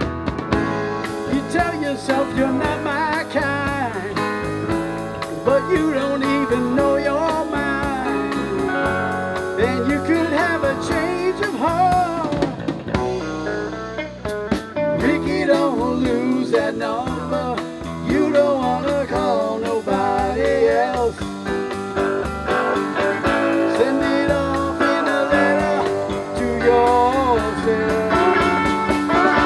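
Live blues band playing an instrumental passage: a lead guitar with wavering, bent notes over electric bass guitar and drum kit.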